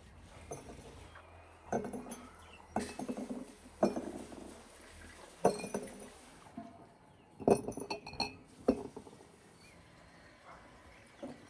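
Peeled garlic cloves dropped by hand into empty glass jars, each landing with a light knock and clink against the glass. The knocks come irregularly, about a dozen in all, and are loudest around the middle.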